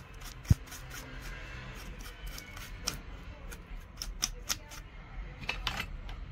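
Bristle brush sweeping metal chips off a milling-machine vise and table: scratchy rubbing with scattered small clicks as chips move, and one sharp knock about half a second in.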